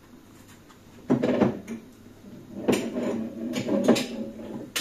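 Knocks and clatter of things being handled in a kitchen wall cupboard, in short bursts: one a little after a second in, then a busier run of knocks from about three to four seconds in.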